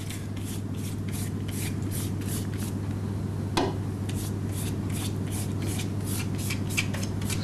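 Pastry brush swishing melted butter across sheets of filo pastry in quick, even strokes, about four a second, with one sharper stroke about three and a half seconds in. A steady low hum runs underneath.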